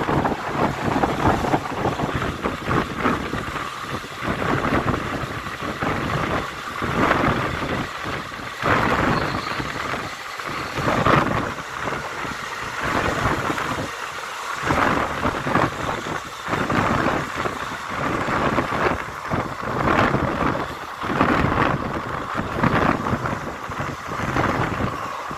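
Wodeyar Express passenger coach running at speed, a continuous rumbling roar of wheels on the track, with wind buffeting the microphone at the open door.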